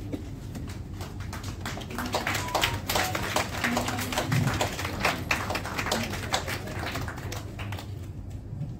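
An audience clapping in a hall, the claps thickening about a second and a half in and thinning out near the end.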